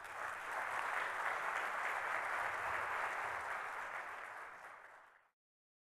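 Audience applauding in a hall. The clapping builds over the first second, holds steady, then thins out before cutting off abruptly about five seconds in.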